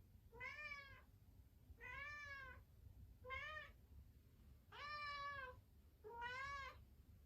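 A cat meowing five times, about a second and a half apart, each meow rising and then falling in pitch.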